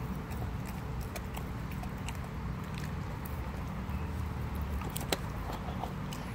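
German Shepherd chewing and gnawing a raw meaty bone: wet chewing with scattered sharp crunches and cracks as the teeth work the bone, the loudest crack about five seconds in.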